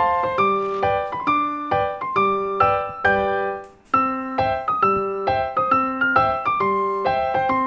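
Piano music: a steady flow of broken-chord notes, each struck and fading, with a brief pause a little before halfway.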